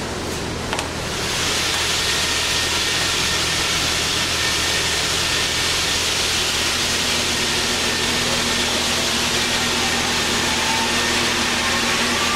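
Baileigh PL-1022VS variable-speed bench lathe switched on with two clicks, then its motor and spindle drive running with a steady whirring hiss. Through the second half a whine climbs slowly in pitch as the speed knob brings the chuck up to about 500 rpm.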